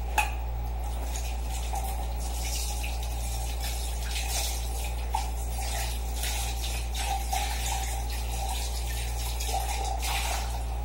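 Kitchen tap running, with water splashing unevenly into the sink and over a pan held under it. A light metal clink of the pan comes just after the start.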